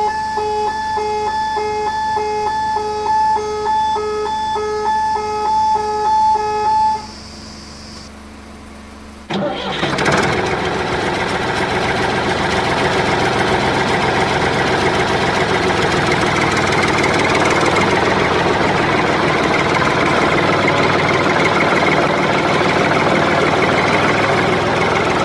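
An electronic warning beep repeating about twice a second, like a level-crossing alarm, for about seven seconds. After a short lull, a tractor engine sound starts about nine seconds in and runs steadily; it is added to the scene, since the wooden toy tractor has no engine.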